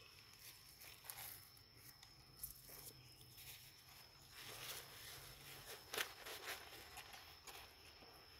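Faint rustling and crumbling of potting soil worked by rubber-gloved hands while a black plastic nursery pot is handled and tipped, with a sharp click about six seconds in.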